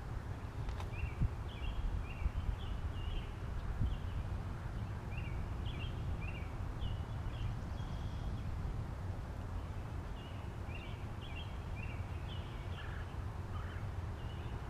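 A small bird singing repeated short, high chirping phrases, over a steady low rumble.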